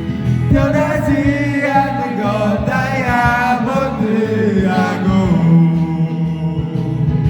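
Karaoke backing track playing, with a voice singing a drawn-out, wavering melody line over it without clear words.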